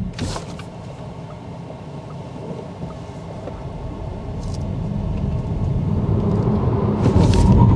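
In-cabin road and tyre rumble of a VW ID.3 electric car, growing steadily louder from a few seconds in as the car gathers speed. A short hiss comes near the start and again near the end.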